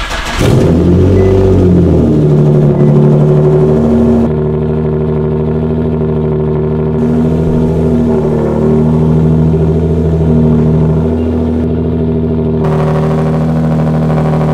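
Turbocharged Nissan 370Z's 3.7-litre V6 cold-starting on its new downpipes and exhaust: it cranks briefly, catches with a short rev flare, and settles into a steady fast idle that eases down slightly about four seconds in. Near the end the idle is heard from behind the car and sounds brighter.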